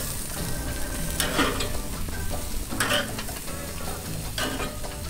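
Chicken thighs sizzling on a hot gas grill, with a few clicks of metal tongs against the grate as pieces are lifted onto the upper rack.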